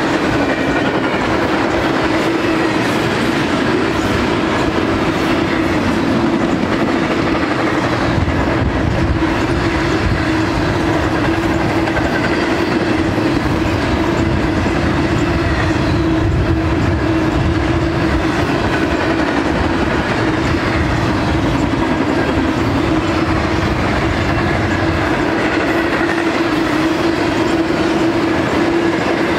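Double-stack intermodal freight train's container cars rolling steadily past, the wheels rumbling on the rails under a steady low hum.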